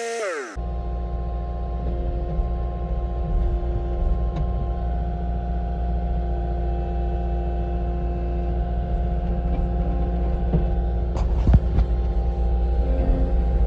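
Skid steer's engine running steadily, with a few knocks about eleven seconds in. It opens with a falling whine that cuts off suddenly half a second in.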